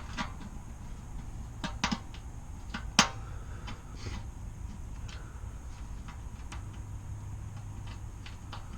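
Light metallic clicks and clinks from metal parts and hardware being handled on a blower motor assembly, with a sharper knock about three seconds in, over a low steady hum.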